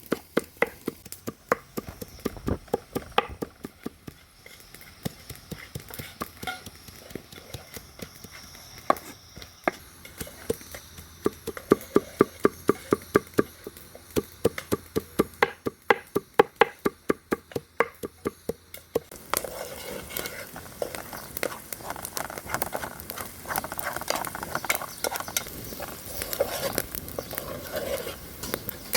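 A knife chopping ingredients on a cutting board in quick, even strokes, about four a second at its fastest. About two-thirds of the way through, the chopping stops and gives way to a busier scraping and rustling.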